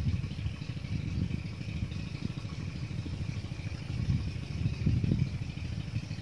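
A small engine running steadily, a low pulsing rumble with no change in speed.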